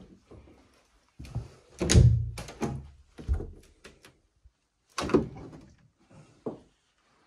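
Interior closet door handled and swung open: a cluster of thunks and knocks, loudest about two seconds in, followed by two more knocks later on.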